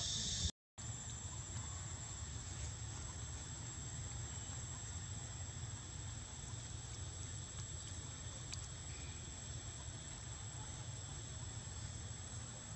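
Steady high-pitched drone of insects over a low steady rumble, cutting out briefly for a moment about half a second in.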